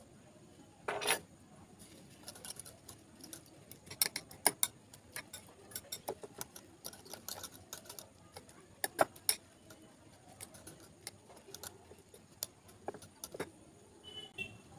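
Metal wire whisk beating egg mixture in a glass bowl: irregular clicks and taps of the wires against the glass, with one short scraping burst about a second in.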